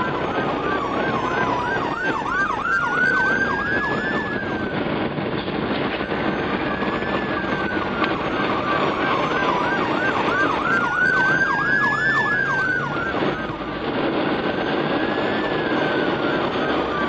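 Ambulance siren, stuck in jammed traffic, alternating between a slow rising-and-falling wail and a fast yelp of about four to five sweeps a second, the cycle repeating every few seconds over the hum of the surrounding traffic.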